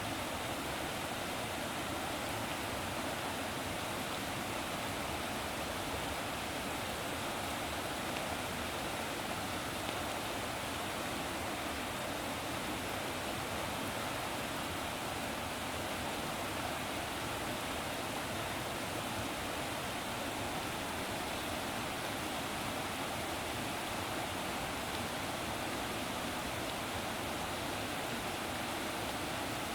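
Steady rushing of running water, even and unchanging in level.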